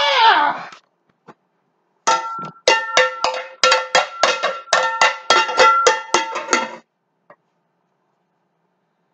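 A man's brief yell falling in pitch at the very start, then, about two seconds in, a few seconds of cowbell-like percussion, metallic strikes at about three a second with deep drum thuds under some of them, which stops suddenly about seven seconds in.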